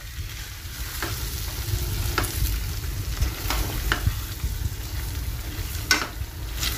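Chicken pieces frying in their spice paste in a non-stick kadai, sizzling steadily while a silicone spatula stirs the mixture, with several sharp scrapes of the spatula against the pan. A steady low rumble runs underneath.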